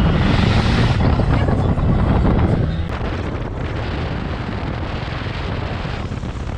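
Wind buffeting a microphone held out the window of a pickup truck driving on a dirt road, over the rumble of the engine and tyres. The rumble drops a little about two and a half seconds in.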